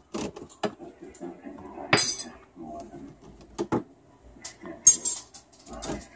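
Metal cutlery clinking and rattling in a countertop dishwasher's plastic rack as it is unloaded: a string of sharp clinks, the loudest about two seconds in and near five seconds.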